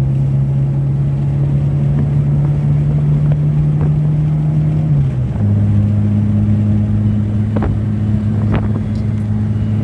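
Car engine and exhaust running through a big-bore exhaust tip with its silencer insert removed, a steady drone under way. About halfway through it breaks briefly and drops to a lower pitch, as with a gear change, then holds steady.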